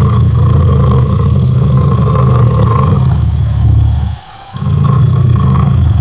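Lion roaring: a long, deep roar that breaks off about four seconds in, followed half a second later by a second roar.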